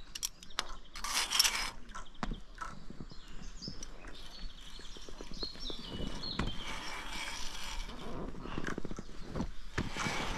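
Irregular knocks and clatter as a climbing-park course element is crossed, with a run of short, high, stepped squeaks from about three to six seconds in.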